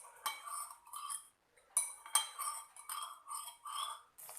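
A metal cooking utensil scraping and clinking against a pan in a quick series of strokes, with a faint metallic ring, as a sauce-and-vegetable gravy is stirred; there is a brief pause a little over a second in.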